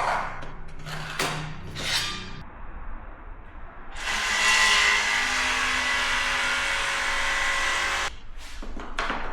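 Electric power saw running for about four seconds as it cuts a small piece off a vinyl floor plank, starting and stopping suddenly. Before it come a few short handling noises.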